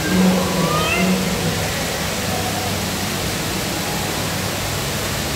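Steady rushing and splashing of an artificial indoor waterfall pouring down a rock wall. Brief background voices come through in the first second and a half.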